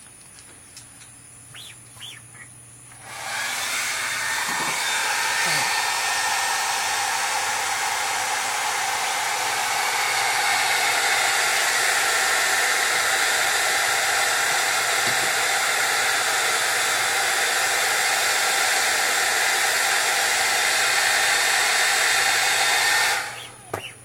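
Hand-held hot-air dryer switched on, blowing steadily for about twenty seconds and then switched off, drying the ink on a screen-printing screen.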